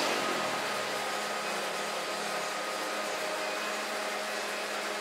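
Steady whirring hiss with a low hum underneath, from a machine or motor running.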